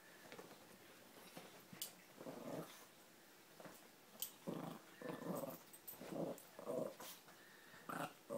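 Two small dogs play-growling at each other while wrestling: one short growl about two seconds in, then a quick run of growls in the second half, with a few light clicks in between.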